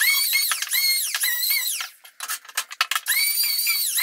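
Power drill whining in quick trigger pulses, its pitch rising and falling with each pulse, with a short pause filled by a few clicks about halfway through.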